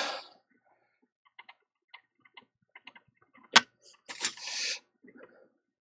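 Scattered faint light clicks and ticks of fine tweezers handled at a phone circuit board, with one sharper click about three and a half seconds in, followed by a short breathy hiss.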